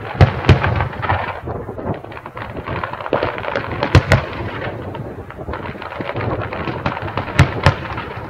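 Aerial fireworks display: shells bursting with sharp bangs, mostly in pairs, about a second in, around four seconds in and near the end, over a continuous crackle and rumble of smaller bursts.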